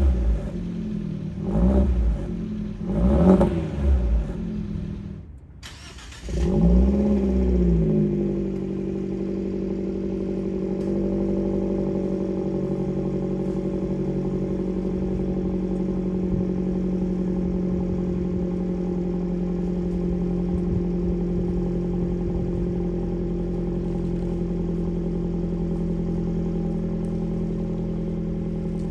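Fiat 124 Abarth's turbocharged 1.4-litre four-cylinder through a 2.5-inch Good Win Racing crosspipe and System One resonator exhaust: three quick throttle blips, a brief dip, one more blip, then a steady idle.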